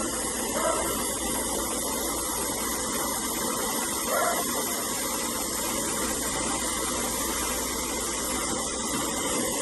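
Steady, even hiss of gas flowing through the refrigerant lines, as with a low nitrogen purge flow used while brazing in a new evaporator coil.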